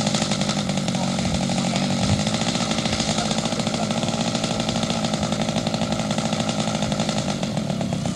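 Model aircraft engine running steadily on the ground, with a buzzing, chainsaw-like note.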